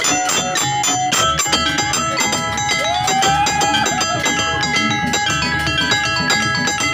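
Traditional Banyuwangi ensemble music for the barong Garuda dance: fast kendang drumming under many ringing pitched percussion notes. About three seconds in, a melody line slides up in pitch.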